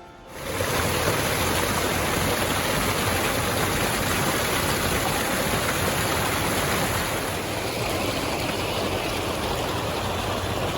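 Rushing water of a mountain stream, a steady loud rush that cuts in suddenly about half a second in.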